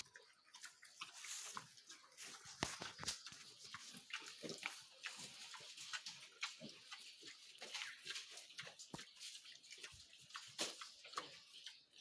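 Pigs in a pen feeding: faint, irregular wet smacking, chewing and rustling clicks.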